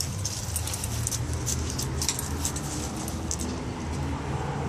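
A pit bull on a leash walking and sniffing along leaf-strewn pavement, with scattered light clicks and jingles, over a steady low rumble.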